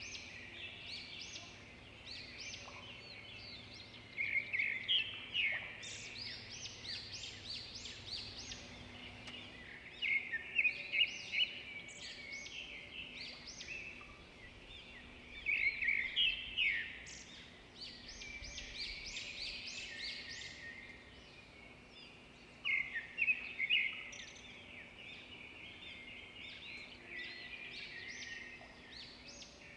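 Birds chirping and calling from the roadside forest: rapid high chirps that come in louder bursts every few seconds, with a faint steady low hum beneath.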